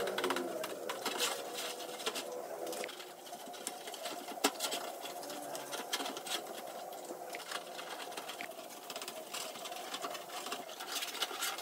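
A small motor-driven hand tool whirs steadily at high speed, with quick scratchy clicks and ticks over the whir.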